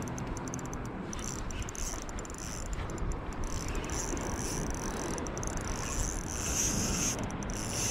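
Spinning reel cranked while playing a hooked fish, under a steady hiss of sea water and wind.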